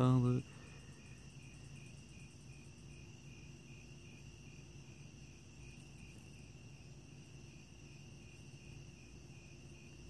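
Faint chorus of night-singing insects, a steady high chirping in an even, repeating rhythm.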